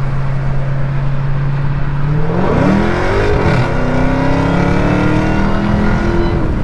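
Dodge Charger Hellcat's supercharged 6.2-litre V8 running steadily, then revving up about two seconds in under hard acceleration, its pitch climbing. There is a brief dip and rise around three seconds in, then a steady climb that eases off near the end.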